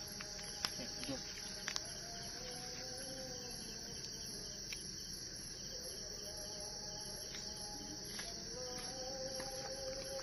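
Steady, unbroken high-pitched chirring of crickets in a night-time chorus, with a few faint clicks in the first two seconds.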